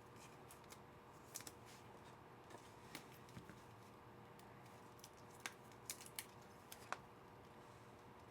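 Near silence with faint, scattered light clicks and taps of trading cards being handled.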